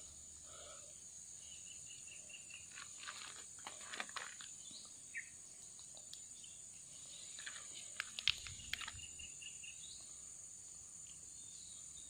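Faint outdoor insect chorus: a steady high chirring, with a short run of rapid, evenly repeated high chirps twice. Light rustles and small clicks of hands handling grass stems and the bird come through now and then.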